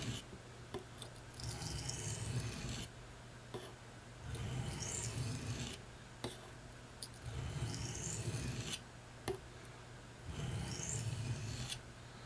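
Knife blade being drawn across the coarse 400-grit side of a combination oilstone: four long, even scraping strokes about every three seconds, with light clicks as the blade is set down between passes. Raising a burr on one side of the edge.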